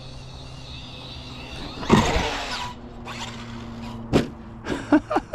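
Brushless RC short-course truck driving on dirt: a faint motor whine gliding up and down in pitch with the throttle, then a loud gritty rush about two seconds in. Sharp knocks follow, one near four seconds and several near the end.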